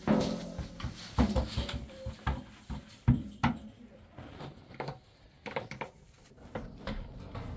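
Irregular knocks and clinks of hard objects being handled, loudest and most frequent in the first three and a half seconds, then sparser and quieter.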